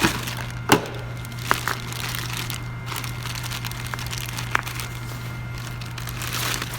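Packaging crinkling, with a few sharp clicks, while a new brake master cylinder is handled.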